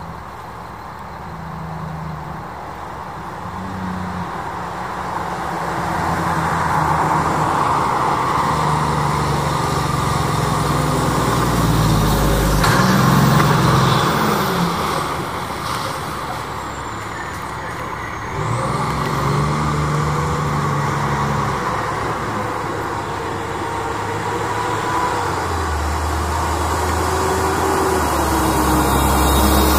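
Fire engine's diesel engine and tyres growing louder as the truck approaches. The sound is loudest as it passes about thirteen seconds in, then runs lower as the truck slows and turns, building again near the end.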